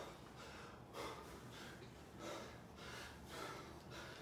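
A man breathing hard in quick, forceful gasps, several a second, from the exertion of squatting a pair of 50-pound dumbbells.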